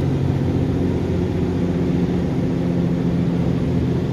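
KAMAZ truck's turbodiesel engine heard from the cab, pulling steadily under heavy load up a long climb, with a faint high turbo whistle.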